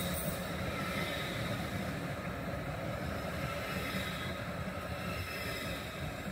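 Danish Nohab diesel locomotive running through the station with its train, a steady low rumble of engine and wheels.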